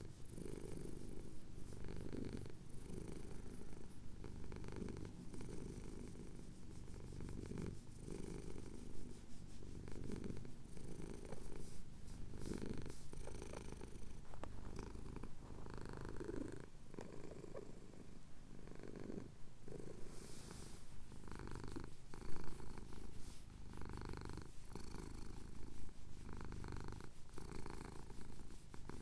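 A domestic cat purring close to the recorder as he has his chin scratched: a steady low purr that swells and eases with each breath. A brief louder noise comes about three-quarters of the way through.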